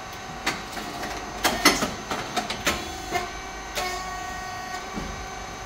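Hydraulic rice cake popping machine running: a steady pitched hum from its motor and pump, with a string of sharp mechanical clicks and knocks over the first four seconds.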